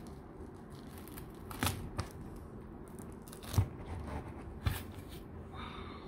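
Red prawn durian husk being pried apart by hand: four sharp cracks and fibrous tearing sounds as the thick, spiky rind splits along its segments. The loudest crack comes about three and a half seconds in.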